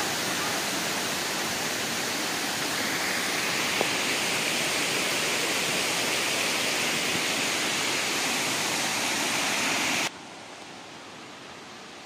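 Steady rush of falling water from a waterfall, dropping suddenly to a much quieter hiss about ten seconds in.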